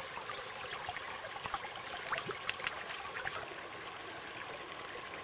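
Shallow mountain stream trickling over stones, with small splashes as a metal bottle is dipped in and filled. After about three and a half seconds the splashes stop and only the steady rush of the water remains.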